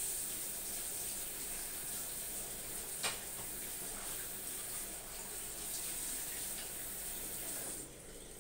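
Bathroom sink tap running steadily into the basin, with one sharp click about three seconds in. The flow is shut off near the end.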